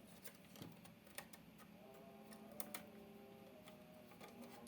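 Faint, scattered small clicks and taps of a DDR4 RAM stick being handled and lined up with the memory slot of an opened laptop.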